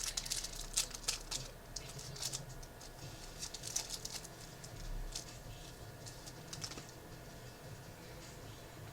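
Trading cards being handled and flicked through one by one, a quick, irregular run of soft clicks and rustles, thickest in the first couple of seconds and thinning out after.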